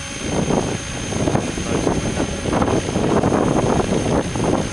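Radio-controlled model helicopter flying, its rotor and motor running, with wind buffeting the microphone in irregular gusts.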